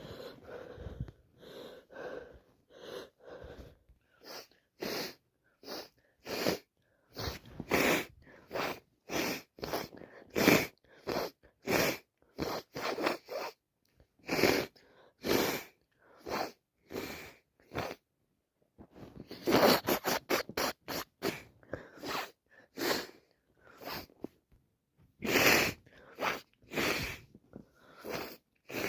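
A person sneezing and sniffing over and over from allergies: a long run of short, sharp, breathy bursts about one a second, with a quick flurry of them about twenty seconds in.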